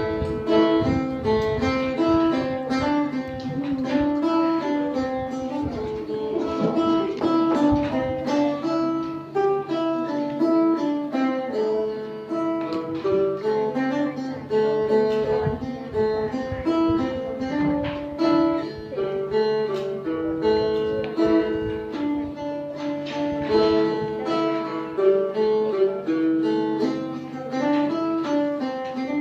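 Phin, the Isan Thai plucked lute, played solo: a quick picked melody over a steady drone note.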